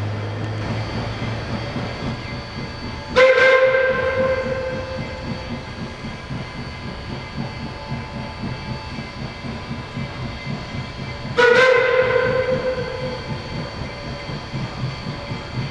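Narrow-gauge K-27 2-8-2 steam locomotive 463 working slowly, its exhaust beating in a steady fast rhythm, while a steam whistle sounds twice, about 3 seconds in and again about 11 seconds in, each blast starting sharply and dying away over a second or two.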